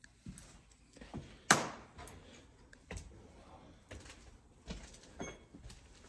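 A series of irregular knocks and thumps, the loudest about one and a half seconds in.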